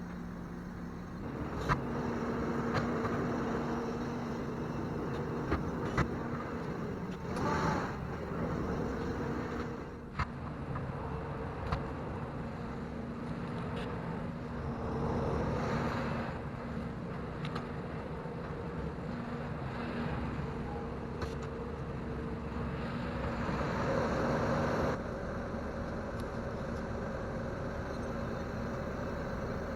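Engine of a Bobcat T770 compact track loader running steadily at working speed, with louder surges of rough noise a few times and scattered knocks and clicks.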